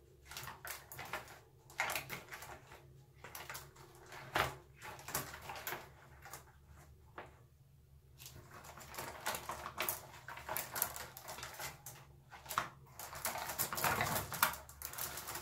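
Wooden bamboo skewers clicking and rattling against one another and against a plastic bowl as they are handled, in irregular clicks that grow busier and louder over the last few seconds.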